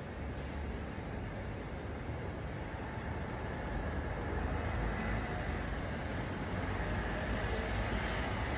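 Steady outdoor city background noise: a low rumble with a hiss above it, like road traffic, growing slightly louder toward the end.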